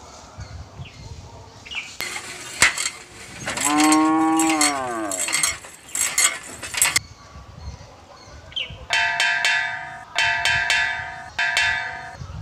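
Cattle mooing: one long moo rising and then falling in pitch near the middle, amid clattering farmyard noise. Near the end a bell rings four times in quick succession.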